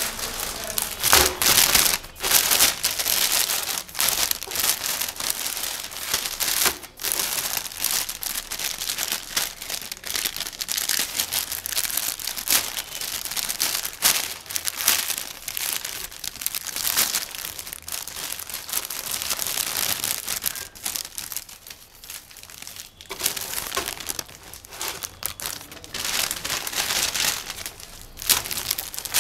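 Plastic packaging crinkling and tearing as the clear film outer bag of a biscuit multipack is ripped open by hand and the individually wrapped wafer packets are handled. The rustling runs almost continuously, with a quieter lull about two-thirds of the way through.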